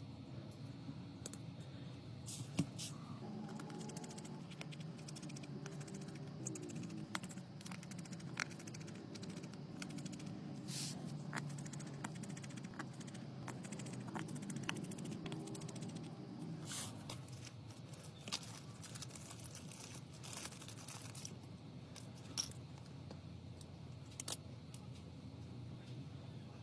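Irregular small clicks, taps and short scrapes of hard small objects being handled, over a steady low background rumble.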